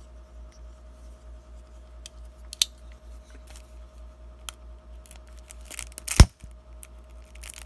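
A few sharp clicks and knocks from a retractable utility knife being handled against a shrink-wrapped card box, the loudest a single knock about six seconds in, with a steady faint hum underneath.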